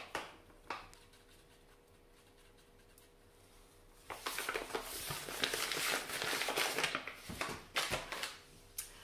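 Paper flour bag crinkling and rustling as its top is folded closed, starting about four seconds in and lasting some three seconds, followed by a few light knocks.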